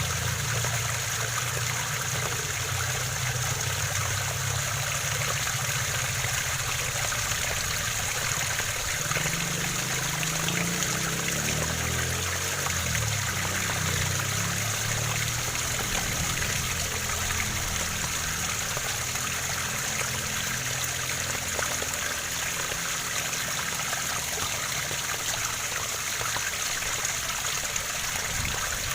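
Waterfall water running and splashing steadily, an even rushing hiss without a break.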